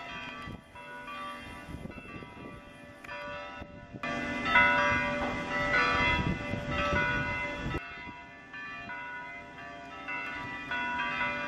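Church bells tolling for a funeral: several bells in an open belfry ringing with long, overlapping tones. The ringing is louder from about four seconds in until nearly eight seconds, then softer again.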